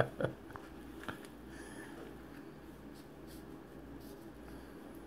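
Faint scratchy rubbing of an antiseptic swab wiping skin, a few light strokes over a steady low hum.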